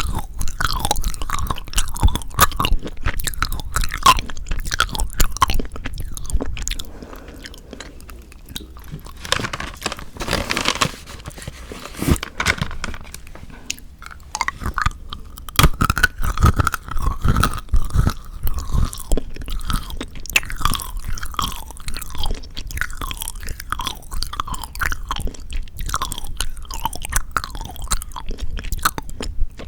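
Close-miked chewing and crunching of chocolate, with many sharp wet mouth clicks. There is a quieter stretch in the first half.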